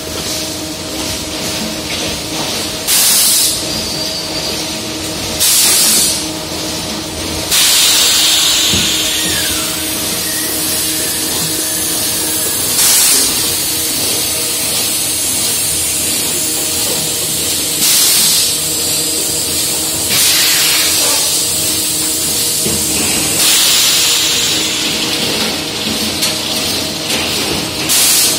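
Blow moulding machine running with a steady hum, broken every few seconds by loud hissing blasts of compressed air, some brief and some lasting two seconds or more.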